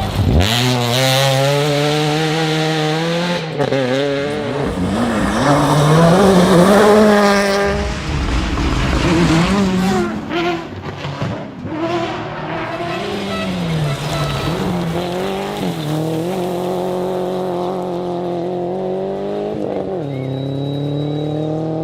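Rally car engine at full stage pace, its pitch repeatedly climbing and dropping through gear changes, with a rougher, noisier stretch near the middle.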